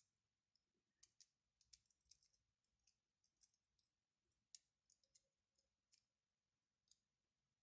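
Faint, irregular clicks of metal tweezers against small 3D-printed plastic parts, with the parts ticking against each other as they are fitted together.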